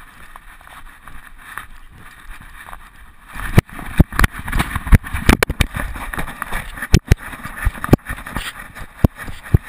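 GoPro camera knocking and rattling in a loose dog harness as the dog moves: irregular sharp clicks and knocks, with heavier low rumbling of bumps and rubbing from about a third of the way in.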